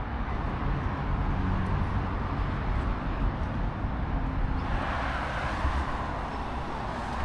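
Road traffic going by, with a steady low rumble; a passing vehicle swells louder a bit past halfway through and fades near the end.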